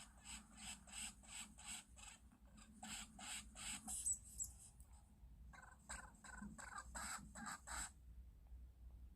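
Lemming calls: a rapid series of short, squeaky chirps, about three a second, in three bouts separated by brief pauses.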